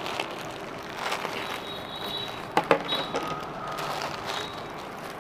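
Soft rustling of a cotton saree being unfolded and lifted up by hand, over a steady background hum, with one sharp click about two and a half seconds in.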